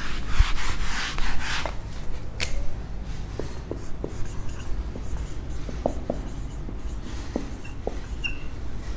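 Whiteboard eraser rubbing across the board for the first couple of seconds, then a marker pen writing on the whiteboard in short strokes with a few faint squeaks.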